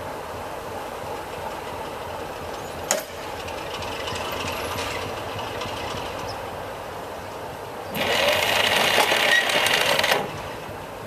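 Class 33 diesel-electric locomotive's Sulzer eight-cylinder engine running steadily at idle. A single sharp knock about three seconds in, and near the end a loud hiss of about two seconds that cuts off suddenly.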